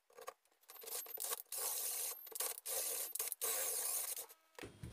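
Cordless drill boring out a stripped cylinder-stud hole through a drill guide, run in several short bursts with brief pauses between them.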